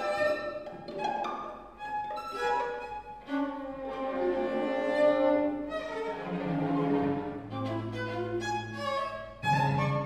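A string quartet of violins and cello playing a contemporary chamber piece live: held, overlapping bowed notes with short breaks, and a low cello note sustained in the last couple of seconds.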